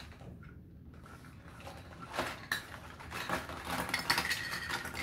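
Plastic toy play food and dishes clattering onto a wooden tabletop as they are tipped out of a nylon drawstring bag. The clatter starts about two seconds in and is loudest near the end.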